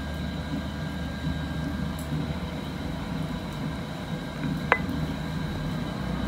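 Steady low background hum, broken by two sharp clinks that ring briefly, one about four and a half seconds in and one at the very end, as a utensil knocks against the dish while tomato coulis is added to the stew pot.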